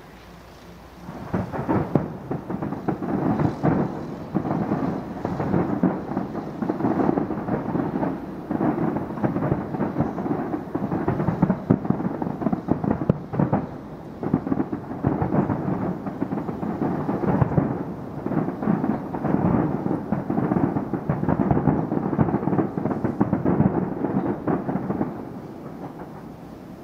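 Fireworks display: a dense barrage of aerial shell bursts, many bangs overlapping almost without pause. It starts about a second in and dies down near the end.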